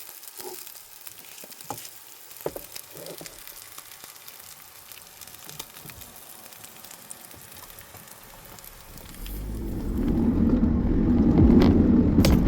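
Lorne sausage sizzling in a frying pan: a soft, steady hiss with small crackles. From about nine seconds in, a much louder low rumble builds up and drowns it out.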